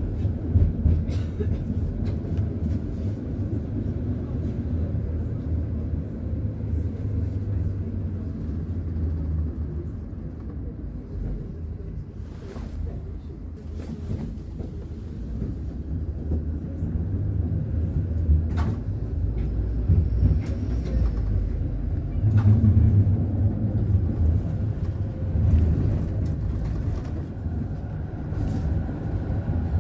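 Ride inside a Konstal 105Na high-floor tram: a steady low rumble of its DC traction motors and gearing with the wheels running on the rails. Sharp clacks break through several times as the wheels cross rail joints, and the rumble swells for a moment a little past the middle.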